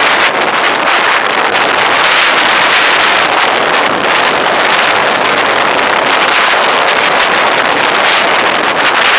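Loud steady rush of wind on a mountain-bike-mounted action camera's microphone during a fast descent, mixed with the rattle of the tyres on the dirt and gravel track.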